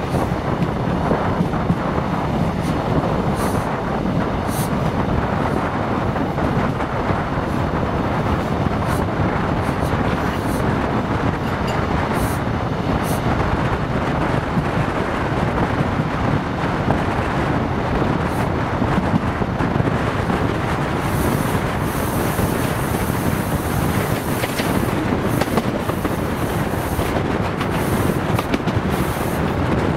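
Caledonian Sleeper train running at speed: a steady, loud rumble of wheels on rail and rushing air, with scattered faint ticks. A brighter hiss comes up about two-thirds of the way through.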